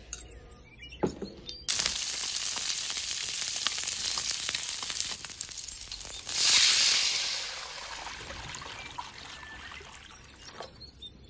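Lemongrass, garlic, shallots and green peppercorns sizzling in hot oil in a steel wok, the sizzle starting suddenly a couple of seconds in. About six seconds in a louder hiss surges as water goes into the hot wok, then the sizzle dies away.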